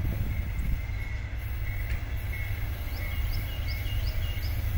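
Steady low rumble of the Silver Star's distant diesel locomotives pulling the train away from its station stop. A bird gives five quick rising chirps near the end.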